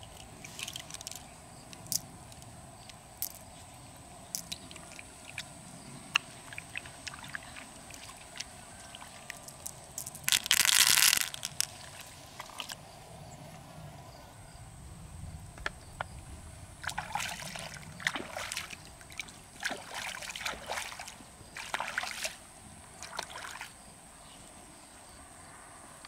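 Water sloshing and splashing in several short bursts in the second half, as an opened freshwater mussel shell is dipped and rinsed in the river. Scattered small clicks come earlier, with one loud rush of noise near the middle.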